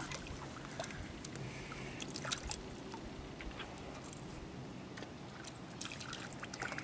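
Faint sloshing and small splashes of shallow water at the shoreline as a small hooked fish is worked loose at the water's edge, with a few light clicks about two seconds in and again near the end.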